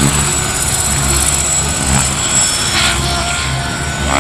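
Large scale RC model of an Aérospatiale SA 315B Lama helicopter flying: steady rotor beat underneath a steady high turbine whine from its onboard turbine sound module.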